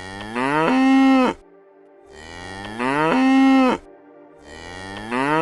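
Cow mooing: three long calls about two seconds apart, each rising in pitch and then held steady.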